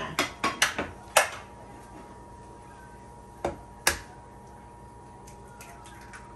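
A quick run of sharp clicks and knocks from handling at the stove, then two sharp taps about half a second apart near the middle: an egg being knocked against the rim of a frying pan to crack it. A faint steady hum runs underneath.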